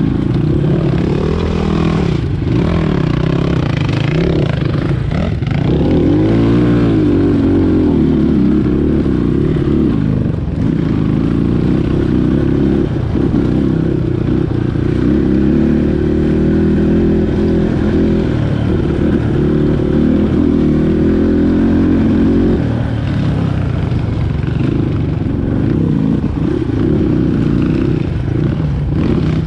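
Dirt bike engine running under changing throttle, its pitch rising and falling again and again, with one clear rev up and back down about six seconds in.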